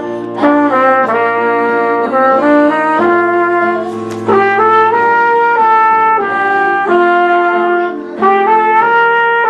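Brass ensemble music, trumpet on top, playing held chords that change together every second or so.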